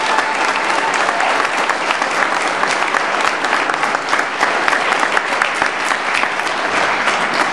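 Crowd applauding: many hands clapping densely and evenly.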